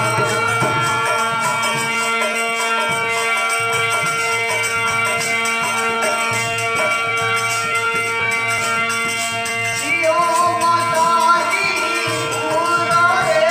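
Instrumental passage of a Rajasthani folk bhajan: long held notes over a steady beat with a shaken rattle. About ten seconds in, a wavering melody line comes in on top.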